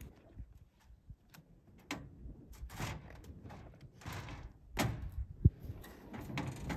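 A series of short rustling swishes with scattered clicks and knocks, one sharp knock about five and a half seconds in.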